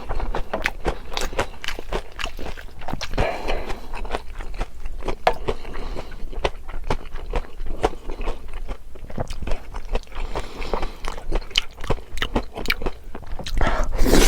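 Close-miked chewing and biting of food, a dense irregular run of small mouth clicks.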